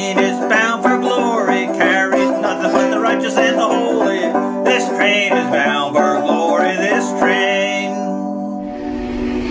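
Banjo-led country instrumental break of fast picked notes, with no singing. The music stops near the end and a steady rumble and hiss of a train recording comes in.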